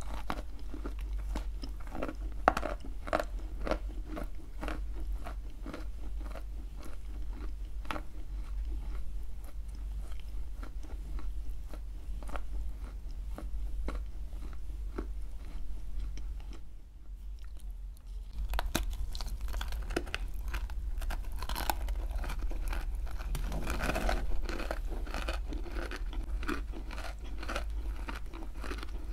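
Edible clay with a creamy paste being bitten and chewed close to the microphone: dense, irregular gritty crunches that thin out briefly about two-thirds of the way through, then pick up again more thickly.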